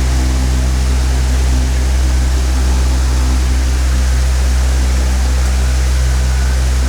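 Electric fan running steadily: a low motor hum under an even rush of air from the spinning blades.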